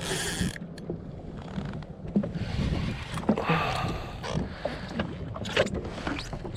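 Wind on the microphone and water moving against a jet ski's hull, with scattered small clicks and knocks; a louder rushing stretch comes about halfway through.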